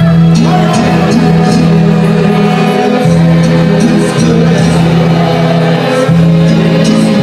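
A mariachi band playing live as a full ensemble, over sustained low bass notes that change about every three seconds.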